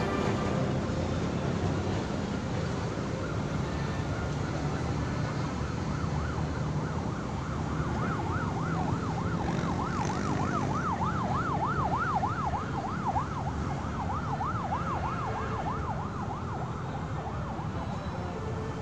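Emergency vehicle siren in a fast yelp, about three up-and-down sweeps a second, fading in a few seconds in and fading away near the end, over a steady low traffic rumble.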